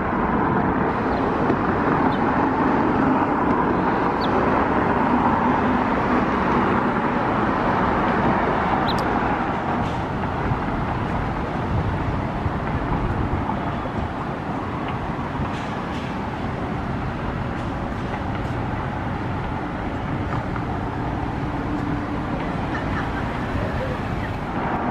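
Steady road traffic noise, a continuous rush of passing cars with no distinct events.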